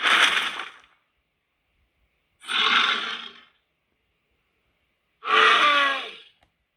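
A film monster's vocal sound effects: hoarse, breathy calls. One trails off in the first second, then come two more, each about a second long, a couple of seconds apart, with silence between.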